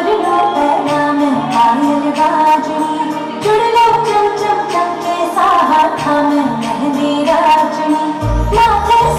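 A Bollywood song with a singer over the music, played loud for a dance routine. A deep pulsing bass beat comes in near the end.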